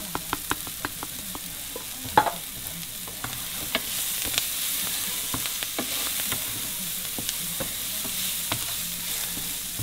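Green onions sizzling in a skillet greased with butter cooking spray. A quick run of sharp clicks opens it, a louder knock comes about two seconds in, and the sizzle grows louder from about four seconds in, with scattered pops.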